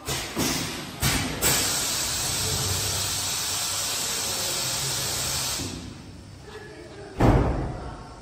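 Automatic tape cutting machine's pneumatics during a shaft exchange: a few sharp hisses and clunks in the first second and a half, then a steady hiss of air for about four seconds that dies away, and a loud clunk with a burst of air near the end.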